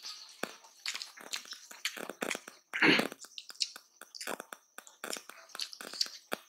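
Close-miked eating sounds: fingers mixing rice with mooli bhujiya on a plate, and chewing. A run of short clicks, several a second, with one longer, louder burst about three seconds in.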